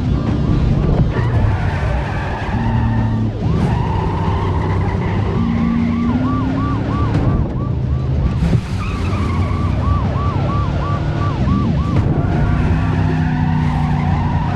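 Car chase: car engines running hard and tyres skidding, with a police siren yelping in quick rising-and-falling sweeps that come and go in runs.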